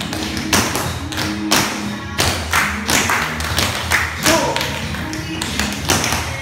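Tap shoes of a group of dancers striking a studio floor in unison, sharp accents about twice a second, over a recorded pop song.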